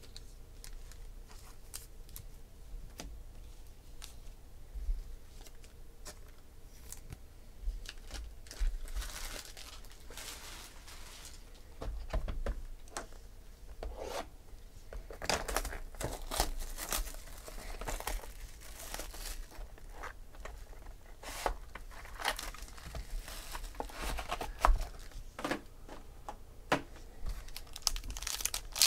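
Plastic wrapping and card-pack wrappers being torn and crinkled as a box of trading cards is opened, with scattered light taps of cardboard and cards. The tearing and rustling start in clusters about a third of the way in, and a pack wrapper crinkles near the end.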